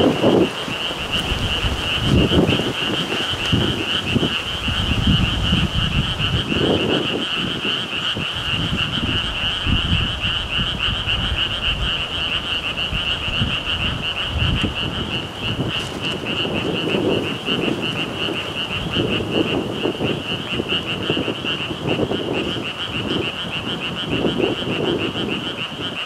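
Strong gusting wind buffeting the microphone in uneven low rumbles. Under it runs a steady, high, pulsing trill.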